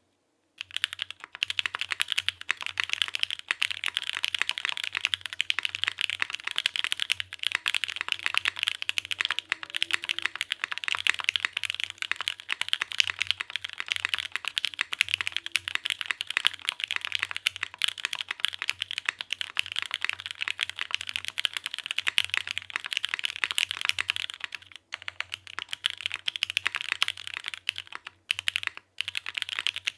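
Continuous fast typing on a Geonworks F1-8X gasket-mounted mechanical keyboard with an aluminium plate, lubed Gateron Pro Milky Yellow linear switches and GMK keycaps: a dense stream of key clacks that begins about half a second in, with a couple of brief pauses near the end.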